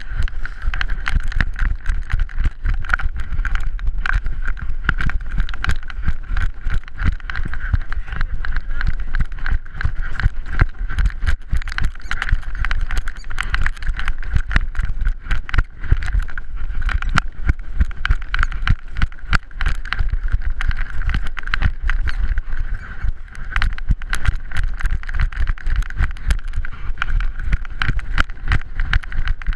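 Handling noise from a GoPro camera mounted on a running puppy's harness: rapid, uneven knocks and rubbing as the mount jolts with each stride.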